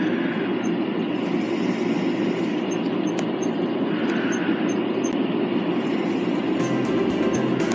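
Steady low rumbling noise, even and unbroken.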